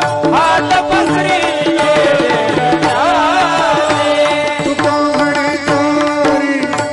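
Marathi kirtan music: a male voice singing a long, ornamented melodic line over tabla, with steady held notes of an accompanying instrument underneath.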